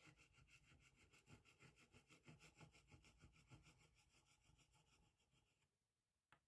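Very faint rubbing of an agate burnisher stroked back and forth over freshly laid gold leaf on a gilded frame, barely above silence. About three-quarters of the way through it drops out entirely, and a single brief click follows near the end.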